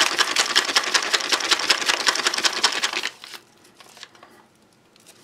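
A sealed plastic drink pouch holding water and lemon energy-drink powder being shaken rapidly to mix it: a fast, even rhythm of strokes that stops about three seconds in.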